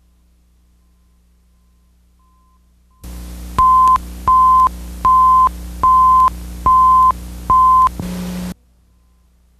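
Six identical short, steady beeps about three quarters of a second apart from a videotape countdown leader, over tape hiss and a low hum. The hiss and hum come in about three seconds in, and after a brief low buzz everything cuts off suddenly.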